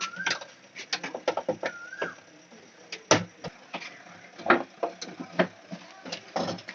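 Irregular clicks, taps and knocks of tools and parts being handled while a washing machine's timer is taken out, with sharper knocks about three seconds in, near the middle and near the end. Two short squeaks sound near the start.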